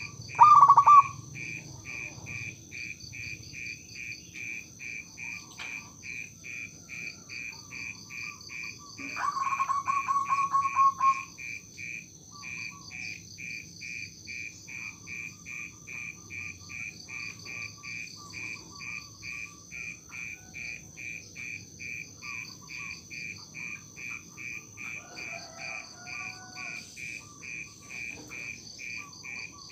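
Zebra dove (perkutut) giving trilled coos: a short one just under a second in and a longer, louder two-second trill around nine seconds in. Underneath, insects chirp steadily at about two to three pulses a second.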